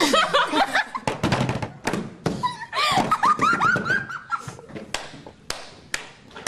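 Girls laughing hard in high-pitched squeals, with sharp hand claps and knocks among the laughter.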